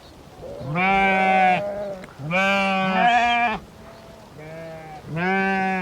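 Sheep bleating: several loud, steady-pitched bleats from the flock, one after another, some overlapping, with a fainter one in between.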